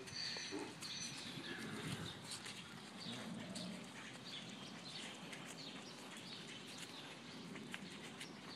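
Faint bird chirps over soft steps on wet, muddy ground.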